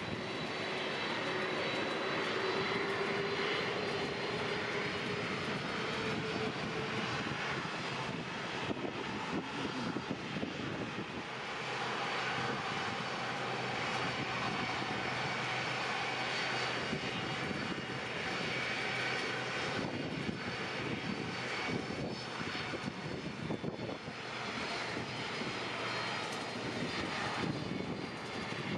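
Airliner engines running steadily: a continuous rush with thin whining tones over it. A lower whine rises slightly in pitch over the first few seconds, then fades.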